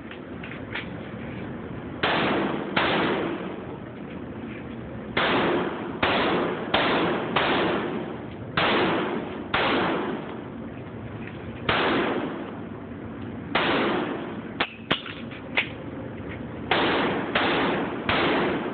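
9mm Beretta 92FS pistol firing a string of shots, mostly in quick pairs about half a second apart, each crack followed by a short echoing tail. A few shorter, sharper clicks come between the strings about two-thirds of the way through.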